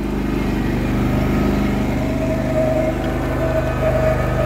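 Cub Cadet GT2544 garden tractor's engine running steadily as the tractor drives over sand. A steady whine joins about two seconds in.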